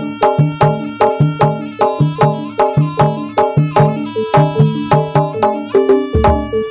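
Jaranan music: a traditional Javanese gamelan-style ensemble playing fast, evenly spaced strokes of pitched percussion and drums, about four to five a second, with a deep drum hit about six seconds in.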